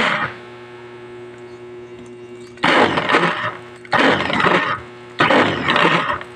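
Mini electric capsule food chopper run in short pulses of about a second each, three times, its blades whirring in the glass bowl, with a steady low hum in the pauses between.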